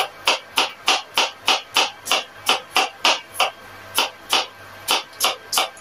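Kitchen knife chopping okra on a cutting board: quick, sharp cuts at a steady rhythm of about three a second.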